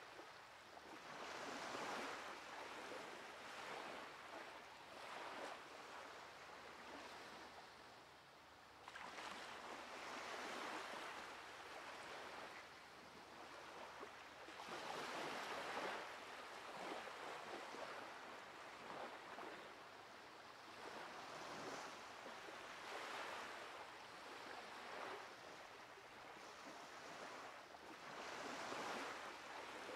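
Ocean surf breaking on a sandy beach, each wave swelling and fading again every several seconds.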